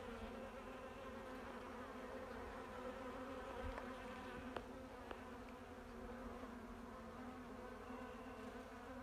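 A mass of honeybees, mostly Buckfast, crowding over a tray of fondant and buzzing: a faint, steady, low hum of many wings, with a few light ticks around the middle.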